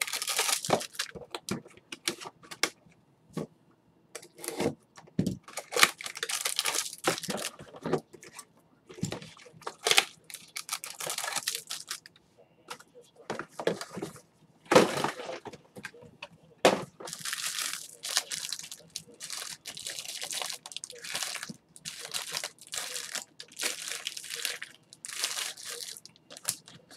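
Packaging crinkling and tearing in short, irregular bursts as trading-card packs and wrappers are handled on a table.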